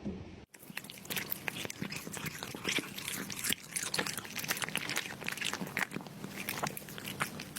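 A cat chewing, a dense run of irregular crunching clicks close to the microphone, over a faint steady hum.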